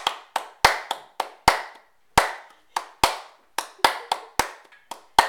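A person clapping their hands loudly in an uneven rhythm, about three sharp claps a second, each followed by a short room echo.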